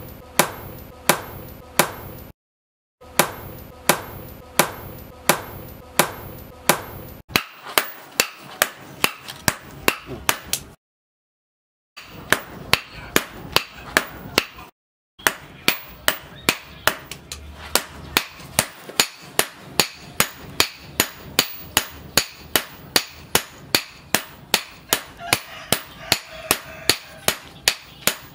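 Hammer blows forging a red-hot steel knife blade on a steel post anvil. The sharp, evenly spaced strikes come about two a second, ringing at first, and quicken to about three a second as a striker works the blade with a sledgehammer.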